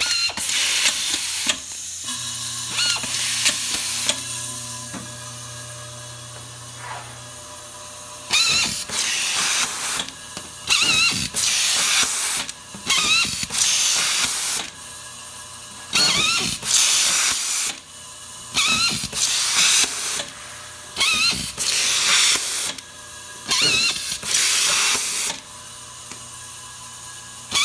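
Automatic feed screwdriver system: first its vibratory bowl feeder runs with a steady low hum as loose brass fasteners rattle in the bowl. Then comes a run of short bursts, about one every second and a half to two seconds: each is a hiss of air as a fastener is blown down the feed tube, along with the pistol screwdriver's motor briefly spinning it in.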